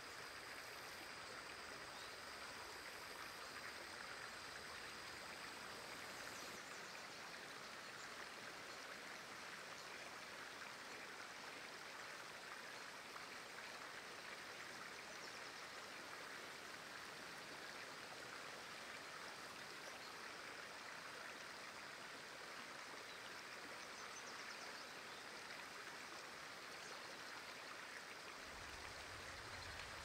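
Faint, steady rush of running water. A thin high steady tone sounds over it for the first six seconds or so, and a low rumble comes in near the end.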